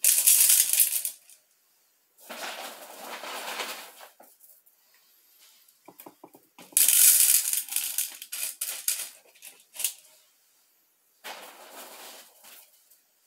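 Handfuls of small white decorative stone chips poured into a glass jar, clattering onto the stone layers inside. Four pours with short pauses between, the first and third the loudest.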